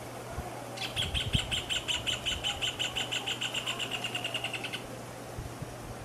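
Rufous hornero song: a fast series of ringing notes that starts about a second in, speeds up and fades over about four seconds.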